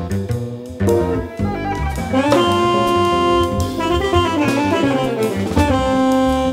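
Live jazz band playing: alto saxophone over drum kit, the saxophone holding long notes in the middle and near the end.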